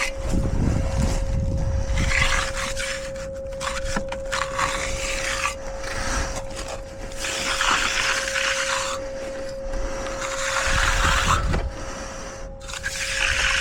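Hand tools scraping and rubbing across concrete in uneven strokes, with heavier low thuds about a second in and again near the end. A steady single-pitch hum runs underneath.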